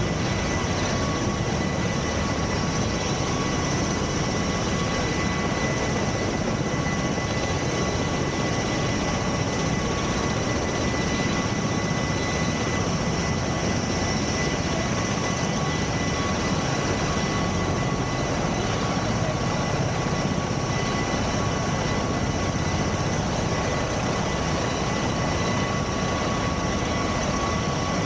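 Turbine aircraft engines running: a steady, constant roar with a high, unchanging whine laid over it.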